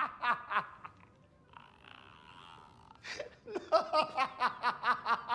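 A man's strained fit of laughter in rapid bursts. About a second in it dies to a faint breathy wheeze, then breaks out again in fast cackles about three and a half seconds in.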